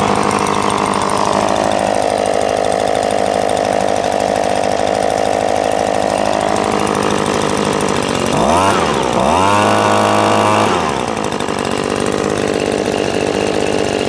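Echo PB-2520 gas leaf blower's two-stroke engine running on its first start with the choke off: its pitch sags for a few seconds and recovers. About eight and a half seconds in it is blipped once, then held at a higher throttle for about two seconds and dropped back.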